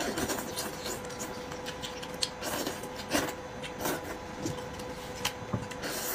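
Mouth sounds of eating braised sheep's head meat off the bone: wet sucking, chewing and lip smacks in a string of short, irregular clicks, over a faint steady hum.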